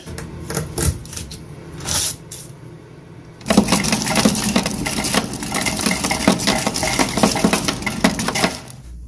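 A knife cutting into a whole watermelon, with a few sharp cracks of the rind in the first few seconds. Then, from about halfway, a dense run of ice cubes clattering and clinking against each other in a plastic-bag-lined ice bucket, stopping shortly before the end.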